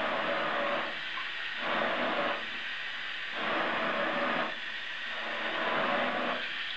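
Water spray striking a wet window pane, a steady hiss that swells and eases about every two seconds as the jet sweeps back and forth across it.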